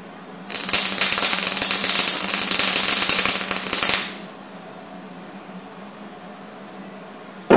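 Electric welding arc crackling and spitting for about three and a half seconds while a nut is welded onto the steel tube of a dirt hole punch, then cutting off. A steady low hum runs underneath, and a single sharp knock comes near the end.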